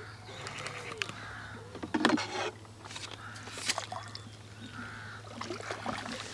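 A hooked tench splashing and thrashing at the water's surface as it is played in and drawn over a landing net, loudest about two seconds in. A crow caws now and then in the background.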